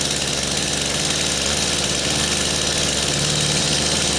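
Brand-new Stihl MS 251 C two-stroke chainsaw running at a steady fast idle on half choke with the chain brake on, during its first cold start.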